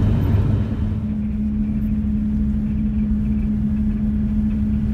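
Steady road and engine rumble heard from inside a moving vehicle's cabin, with a steady low hum joining about a second in.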